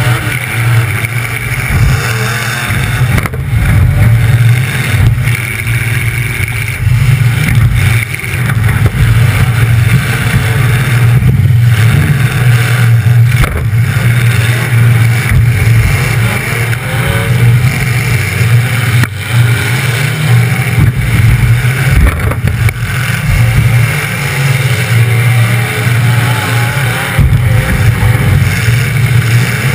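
Demolition derby car's engine running loud through short open upright exhaust pipes right beside the microphone, a steady low exhaust note with the revs wavering up and down.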